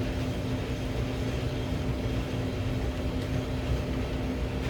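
Hand brace turning a countersink bit into wood, a soft steady scraping cut, under a constant background hum.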